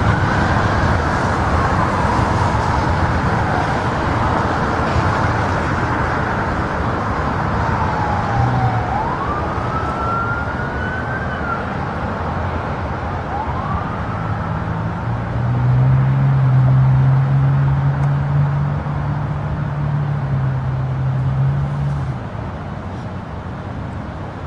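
Jet noise from a Boeing 777-300ER's twin GE90 turbofans at takeoff power, a steady roar. Through the first half a siren wails slowly up and down behind it. From about fifteen to twenty-two seconds a low droning hum is the loudest thing, and the noise then drops a little.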